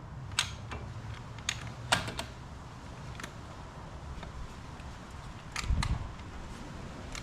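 Scattered sharp clicks and taps of metal hardware and tools being handled, with a dull knock about six seconds in.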